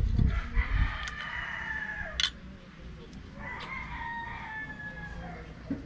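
A rooster crowing twice, each a long call that slowly falls in pitch. There are a few low handling thumps near the start and a sharp click about two seconds in.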